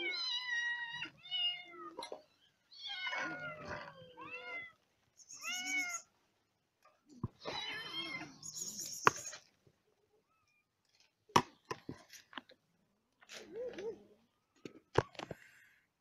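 Several hungry cats and kittens meowing for food, about six calls in the first half, some high and thin. In the second half there are a few sharp clicks and one shorter, lower meow.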